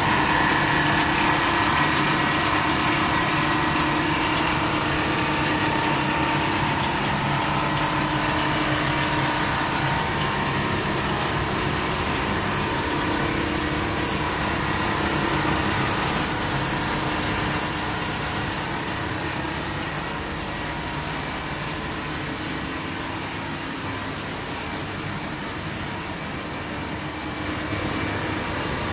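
Steady machine hum and whir of a running breathable PE film cast extrusion and stretching line, its rollers turning, with a few steady tones over an even noise. It gets a little quieter in the second half.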